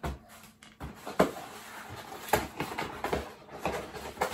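A parcel being unpacked by hand: irregular rustling and handling of the packaging, broken by short knocks and clicks, the sharpest a little over a second in.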